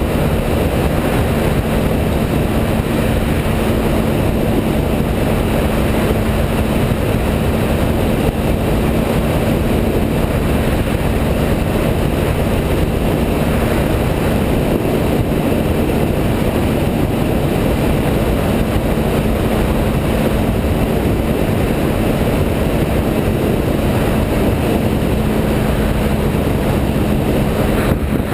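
Triumph Speed Triple's 1050 cc inline three-cylinder engine running at a steady cruise, under the rush of wind and road noise. The engine pitch holds even throughout, with no revving or gear changes.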